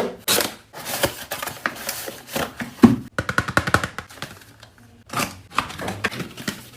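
A parcel being unboxed, with the packaging rustling, crinkling and clicking irregularly as it is handled and opened, over background music.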